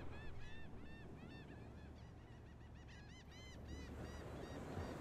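A bird calling in quick series of short, high, rise-and-fall calls, several a second, over a faint steady low rumble; the calls thin out near the end.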